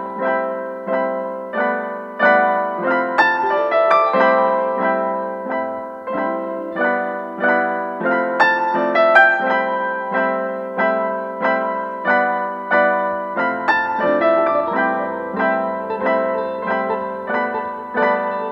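Background piano music, notes struck at an even, unhurried pace.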